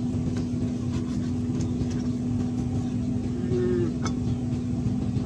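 A steady low motor hum with one constant tone, like an engine running without change. A short pitched whine sounds briefly about three and a half seconds in.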